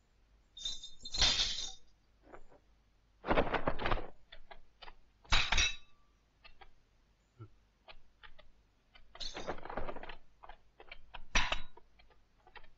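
Film fight-scene sound effects: several short, noisy crashes with scattered sharp metallic clinks and clicks between them.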